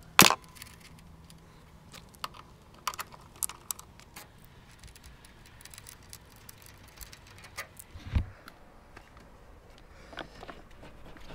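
Light metallic clicks and taps of the motorcycle's gas tank bolts and washers being handled by hand, with a sharp click at the start and a dull thump about eight seconds in.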